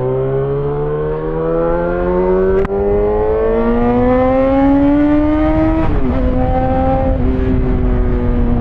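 Yamaha XJ6 S inline-four engine with an SC-Project aftermarket exhaust, revs climbing steadily under acceleration. About six seconds in the pitch drops at an upshift, then the engine holds steady revs.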